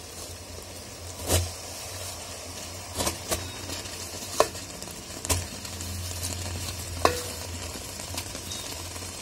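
Jaggery syrup boiling in a pan with a steady bubbling hiss as grated coconut goes in, broken by about six short sharp knocks against the pan.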